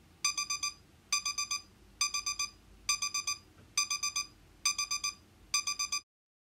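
Digital timer alarm beeping in quick clusters of four high beeps, repeating about once a second: the countdown has reached zero and the cooking time is up. The beeping stops about six seconds in.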